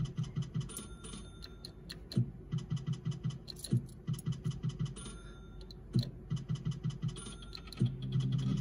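Zeus Glory video slot machine playing its reel-spin sound effects: a rapid, even ticking of about five ticks a second over short low electronic tones, with a few louder clicks as reels stop, and a steadier low tone near the end.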